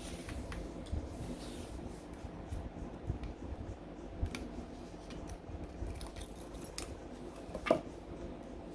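Scissors snipping a thin piece of tin cut from a spray can, heard as scattered light clicks and small handling noises over a faint steady hum.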